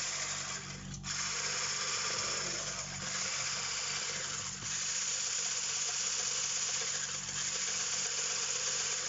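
Electric mixer with a wire whisk running steadily, beating eggs and oil in a stainless steel bowl, with a brief dip about a second in.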